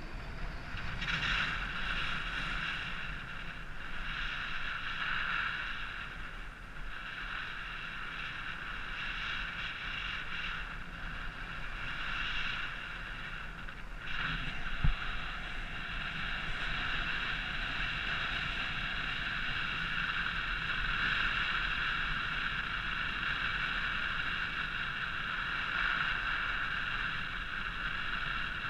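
Wind rushing over the camera of a paraglider in flight, with a low buffeting rumble and a steady high-pitched whistling tone over it. A single sharp knock about fifteen seconds in.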